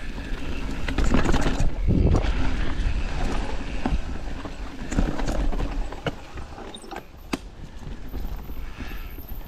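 Mountain bike descending a rocky, rooty trail: the tyres rumble over the ground and knock sharply against rocks and roots, with the bike rattling over the rough sections.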